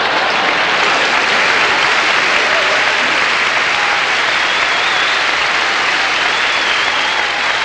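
Large audience applauding, a dense, steady clapping that holds at full strength throughout.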